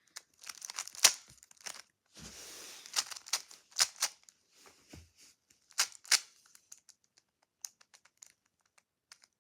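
Plastic clicks and clacks of a Rubik's cube being handled and its layers turned, with several sharp snaps as layers click into place, a short rustle about two seconds in, and fainter ticks near the end.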